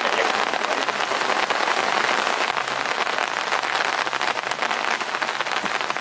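Rain falling steadily: a dense, even patter of many small drops.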